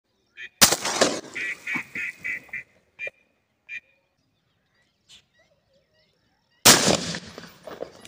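A shotgun shot about half a second in, then a duck quacking in a quick run of about five quacks, followed by two or three single quacks. A second shotgun shot comes near the end.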